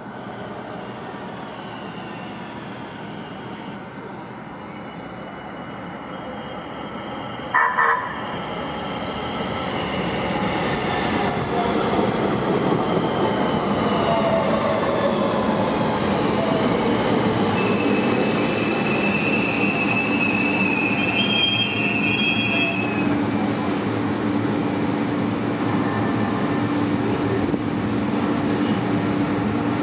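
AnsaldoBreda P2550 light-rail train pulling into a station and braking to a stop. Its electric drive whines, falling in pitch as it slows, and the wheels squeal high briefly near the stop, after which a steady hum stays. A brief loud sound comes about eight seconds in, as the train approaches.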